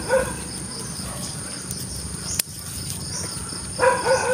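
A steady high insect drone with a series of short, pitched yelping calls, a couple at the start and a run of them again near the end. A single sharp click sounds a little past halfway.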